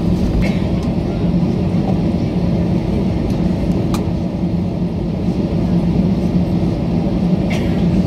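Airliner cabin noise while taxiing: a steady low hum from the jet engines at taxi power, with a constant drone underneath. There are a few brief clicks, the sharpest about four seconds in.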